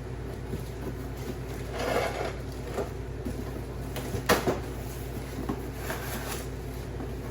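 Parts of a deer-feeder cage being handled during assembly. There is a scrape about two seconds in, a sharp knock a little past the middle, and rustling near the end, all over a steady low hum.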